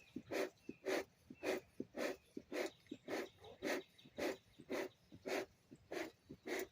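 Bellows of a beekeeper's smoker pumped in a steady rhythm, about a dozen short puffs of air just under two a second, with light clicks of the bellows between them, as he works to get the smoker's fuel smoking.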